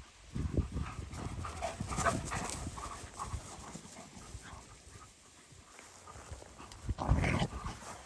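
An Alaskan malamute moving about and panting, with irregular knocks and scuffles; the loudest burst comes about seven seconds in.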